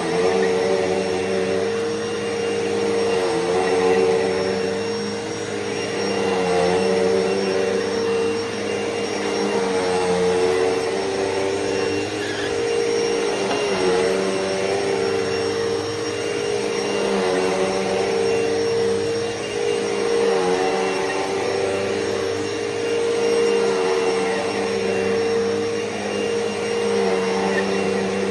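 2006 Hoover Elite Rewind upright vacuum cleaner running with its high-pitched motor whine. The pitch dips slightly every three to four seconds while it is vacuuming.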